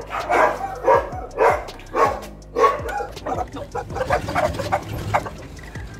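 Dogs barking repeatedly, loud calls about twice a second for the first three seconds, then fainter, quicker barks.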